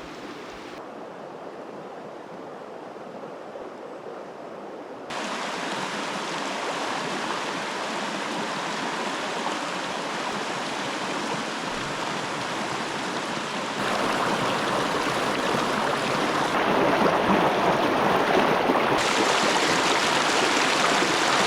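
River water rushing over rocks, a steady rush that grows louder in two steps, about five seconds in and again near the middle.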